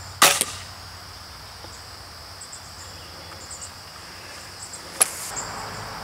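A recurve crossbow fired once: a single loud, sharp snap with a short ringing tail about a quarter second in. Steady crickets and insects buzz throughout, and a second, shorter sharp click comes about five seconds in.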